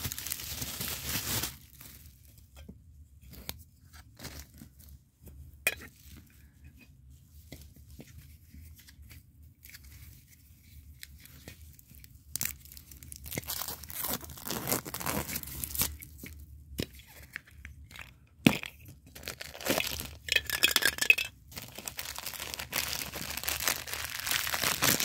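Hands opening a Funko Soda can and its sealed plastic figure bag: a burst of rustling at the start, then mostly small clicks for about ten seconds, then repeated bouts of plastic crinkling and tearing through the second half.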